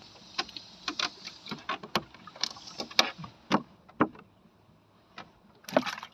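Irregular knocks and clatters of fishing gear being handled in a small boat, with a louder clatter about three seconds in and again near the end.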